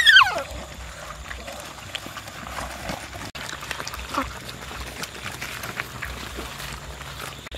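Several dogs eating fried fish from a wicker basket: a steady patter of small wet chewing and crunching clicks, with a short falling squeal about four seconds in.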